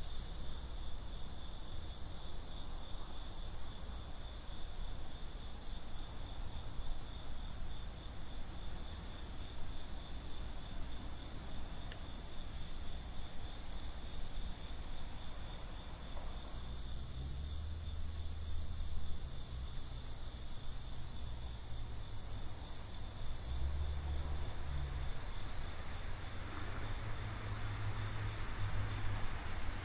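Night chorus of crickets, including bell crickets (suzumushi), a steady high-pitched trilling with a fast pulsing texture. A faint low rumble sits underneath and grows somewhat stronger in the second half.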